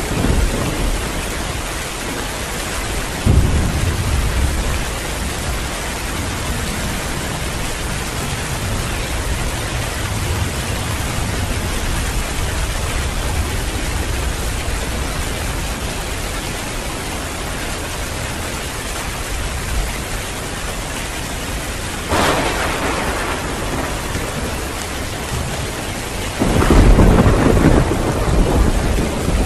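Heavy rain pouring steadily, with thunder: a low rumble about three seconds in, a sudden crack about three-quarters of the way through, and a louder rolling rumble near the end.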